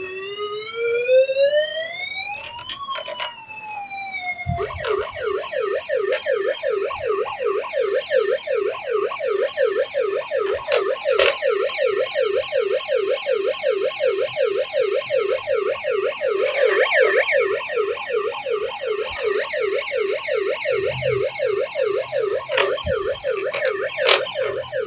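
Toy emergency vehicle's battery-powered electronic siren. It first makes one slow wail that rises and falls, then switches about four and a half seconds in to a rapid, steady warbling yelp.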